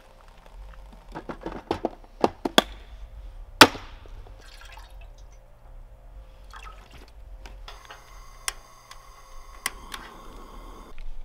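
Water poured from a plastic jug into an aluminium camp pot, trickling and ringing in the pot. Before the pour come a few sharp clicks and knocks of metal cookware being handled, the loudest about three and a half seconds in.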